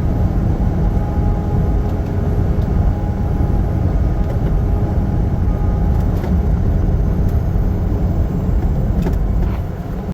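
Semi truck driving on the highway: a loud, steady low rumble of engine and road noise, with a few faint clicks.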